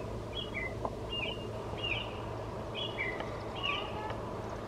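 A bird calling: a series of about six short, high chirps, each a quick down-slurred note, coming a little under a second apart over a steady low hum.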